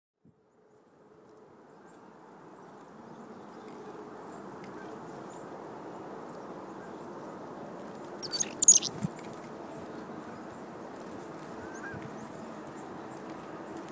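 A flock of waterfowl calling steadily, fading in over the first few seconds. About eight and a half seconds in there is a brief, loud, high-pitched sound close by.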